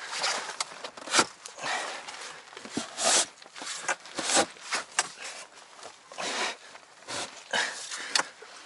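Irregular scraping, rubbing and light knocking as aluminium-edged floor panels are handled and pushed into place over the fabric bottom of an inflatable boat, about one or two sounds a second.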